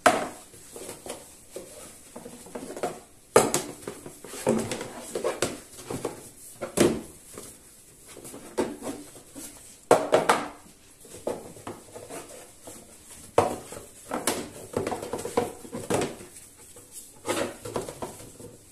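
Plastic food tubs handled on a granite countertop: irregular knocks as they are set down and shifted, with rubbing and rustling as their insides are wiped with olive oil on a cloth.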